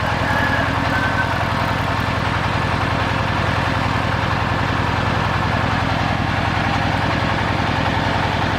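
An engine running steadily at idle with an even low throb, and a brief faint squeak near the start.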